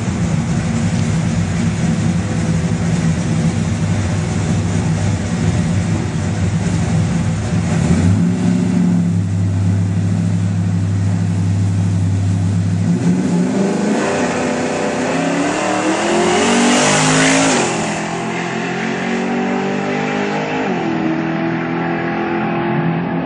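First-generation Chevrolet Camaro drag car engine idling with a heavy rumble, then held at a steady higher rev about eight seconds in. About thirteen seconds in it launches at full throttle, the revs climbing and dropping back twice at the upshifts as the car pulls away down the strip.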